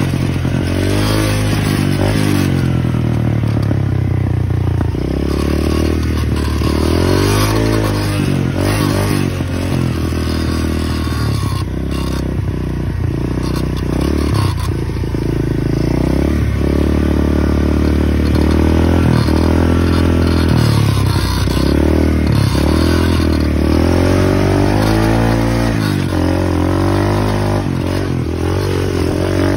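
125cc dirt bike engine under load while riding, revs climbing and dropping again and again every couple of seconds as the throttle is worked and gears change.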